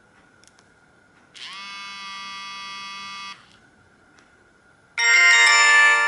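Samsung SGH-E900 mobile phone playing two short electronic tones: a held tone of about two seconds that slides up in pitch at its start, then, after a short gap, a louder, fuller chord that starts near the end. A faint steady high whine sits under both.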